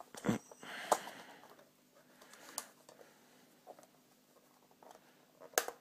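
Hard waterproof iPhone case being handled and pried open: a few scattered clicks and knocks, the sharpest one near the end.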